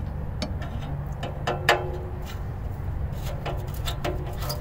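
Scattered light clicks and knocks as the loose muffler and exhaust pipe are handled, one louder knock with a short metallic ring about a second and a half in, over a steady low hum.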